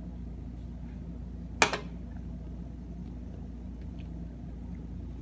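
An aluminium soda can set down on the counter with one sharp knock about a second and a half in, over a steady low hum of room tone.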